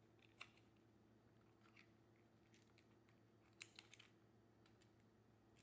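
Near silence with a steady low hum and a few faint, sharp clicks of small parts of a fish-finder being handled. There is one click about half a second in and a quick run of three or four a little past the middle.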